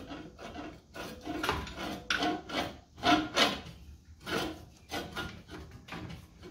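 Reel blades of a Silent Scott's Deluxe push reel mower, turned by hand, scraping one after another across the bed knife, a short rasp with each blade, about two a second. This is the blade-to-bed-knife contact listened for while setting the bed knife on the dull reel.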